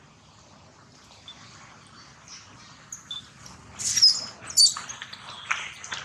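Baby macaque screaming: two loud, high-pitched shrieks about four seconds in, then shorter squeals. These are infant distress calls.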